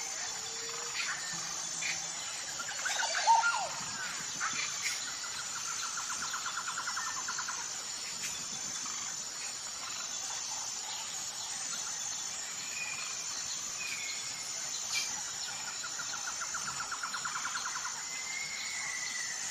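Birds singing: scattered short chirps, a louder call about three seconds in, and two rapid trills of a couple of seconds each, over a steady high-pitched buzz of insects.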